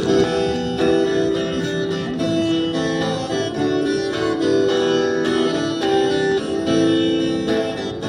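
Guitar playing an instrumental passage, with held notes and chords changing every second or so.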